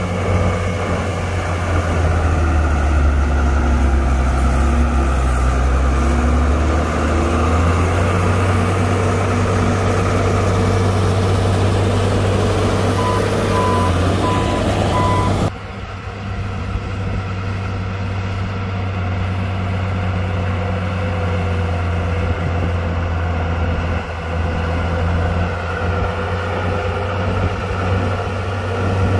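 Diesel engine of heavy earthmoving machinery running steadily with a deep hum. About halfway through come three short beeps of a warning alarm. Shortly after, the engine sound changes abruptly.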